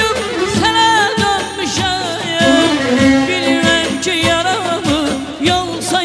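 Azerbaijani mugham-style band music: keyboard and drums keep a steady beat under a heavily ornamented, wavering melody, with a man singing into a microphone.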